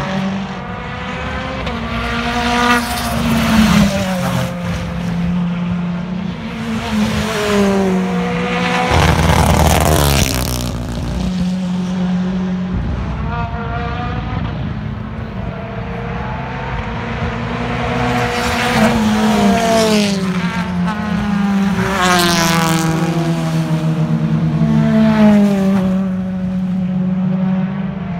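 BTCC touring cars' turbocharged four-cylinder engines revving up and down as several cars pass in turn, loudest about ten seconds in and again around twenty-two seconds, with crackling and banging from their anti-lag systems.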